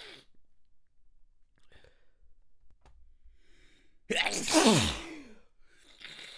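A person's sneeze breaking out suddenly about four seconds in, loud, with a voiced cry that falls steeply in pitch, after a few faint breaths. A softer breathy exhale follows about a second later.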